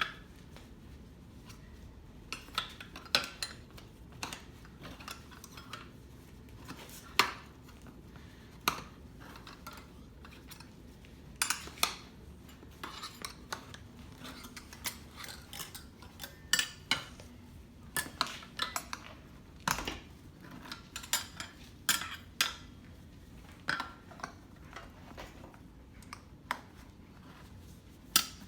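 Steel tire spoons clinking and scraping against a dirt bike's metal wheel rim as the tire bead is levered off: irregular sharp clinks, sometimes several close together, with short pauses between.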